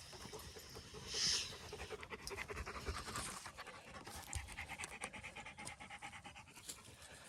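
A dog panting rapidly and close by, with a brief louder breathy burst about a second in.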